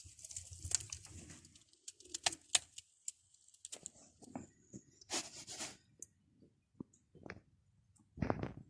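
Birds calling, among scattered short sharp clicks and a brief rush of noise about five seconds in.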